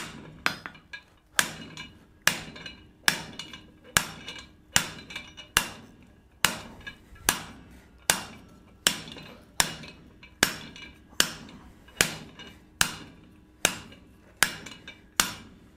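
Hand hammer striking the top die of a guillotine fullering tool, fullering a groove around a hot steel bar. The blows are steady and evenly paced, about one every 0.8 s, each with a short metallic ring.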